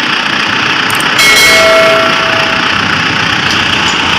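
Mitsubishi Pajero Fieldmaster diesel engine running steadily at idle. About a second in, a metallic clang rings out and fades over a second or so.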